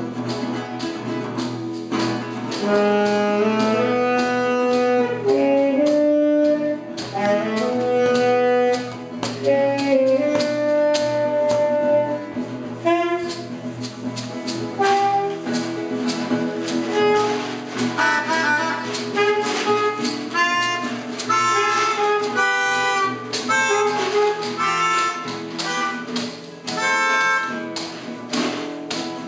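Free improvised ensemble music: a melodica plays held reedy notes and short melodic lines over an acoustic guitar, with many sharp taps and clicks on tin cans and bottles. The tapping grows busier in the second half.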